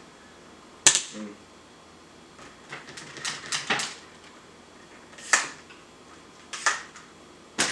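Sharp clicks and knocks of a rifle bipod being handled and adjusted: one loud click about a second in, a quick run of clicks around three to four seconds, then single clicks every second or so.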